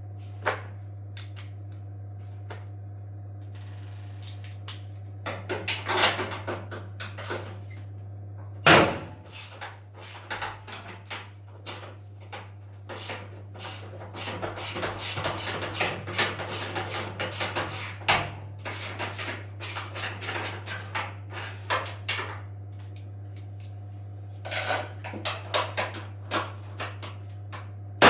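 Irregular clicks, knocks and clatter of tools and parts being handled while a washing machine is taken apart, over a steady low hum, with one loud knock about nine seconds in.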